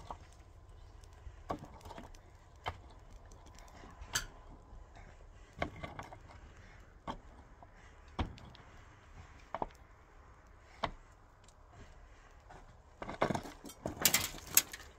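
Long-handled pick or mattock striking the earth-and-board roof of a small hut: single sharp knocks about every second and a half, then a quick flurry of louder clattering strikes near the end.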